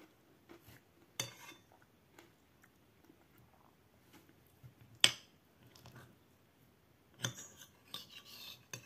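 A metal spoon scraping and clinking against a plate while scooping food. There are a few sharp clinks, the loudest about five seconds in, and a run of scraping and clinks near the end.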